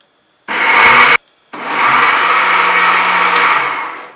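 Electric mixer grinder with a steel jar grinding cashews, sugar and paneer into a paste. It runs in a short burst of under a second, stops briefly, then runs again for about two and a half seconds before winding down near the end.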